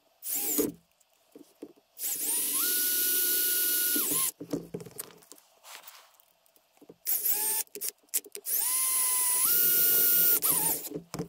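Cordless drill driving self-tapping screws into PVC pipe: two short blips, then two runs of about two seconds each. In each run the motor's whine rises in pitch, holds steady, then stops.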